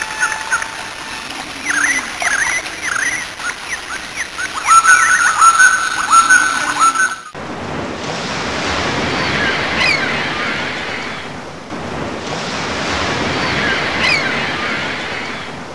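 Chirping birds, many short repeated calls, for about seven seconds. Then an abrupt switch to ocean surf, with waves swelling and falling back about every four seconds and a few bird calls over it.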